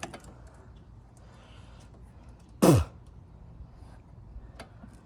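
Low background of faint handling clicks. About two and a half seconds in, a man makes one short, loud throat sound, a grunt that falls quickly in pitch.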